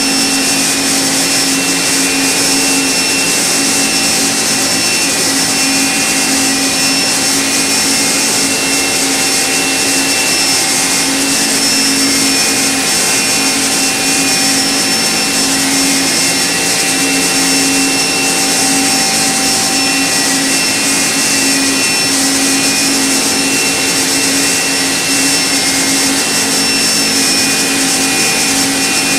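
Okuma MB-5000HII horizontal machining center's spindle running while its end mill cuts a small metal workpiece: a steady machine whine with several held tones over an even hiss.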